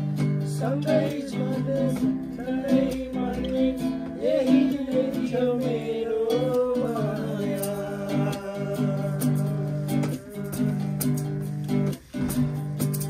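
Music: a Nepali folk song with strummed acoustic guitar, and a voice carrying a wavering melody through roughly the first half.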